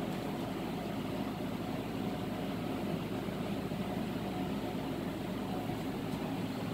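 Many honeybees buzzing steadily around an opened hive as its frames are lifted out.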